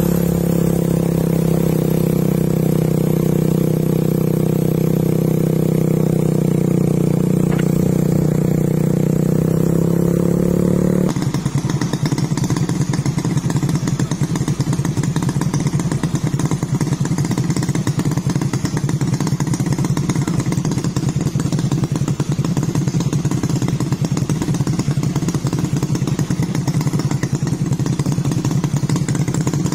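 Light truck's diesel engine running steadily close by, an even deep hum. About eleven seconds in it cuts to a rougher engine idling with a rapid clattering pulse.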